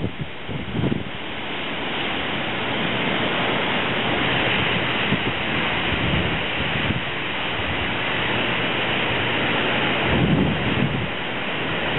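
Strong, gusty storm wind tearing through trees, leaves rustling hard. The wind buffets the microphone in low rumbles near the start and again about ten seconds in.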